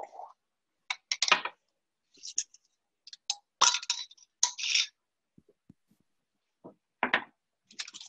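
Kitchen utensils and dishes clinking and clattering as they are handled on a counter: a run of short, sharp clinks in irregular bunches, with pauses between.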